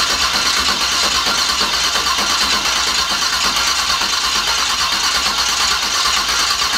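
Starter cranking the Camaro's engine steadily, with the distributor disconnected so it cannot fire, to prime the new fuel system; it cuts off abruptly near the end.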